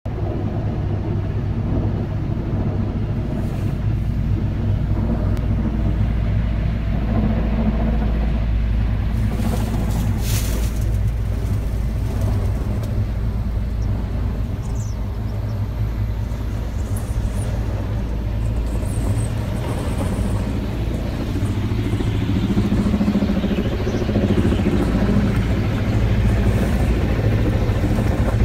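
Steady low engine rumble heard from inside a crane cab, with a brief hiss about ten seconds in.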